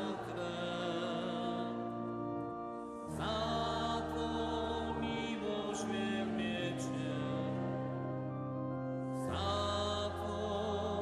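Church organ playing slow, held chords that change about every three seconds, with singing over it.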